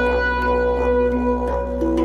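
Drone music: a steady low didgeridoo drone under a held reed-instrument melody tone that steps up slightly in pitch near the end, with faint regular percussive taps.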